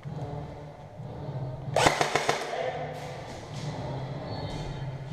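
Airsoft gun firing a short rapid burst of about half a dozen shots a couple of seconds in, over a low steady hum.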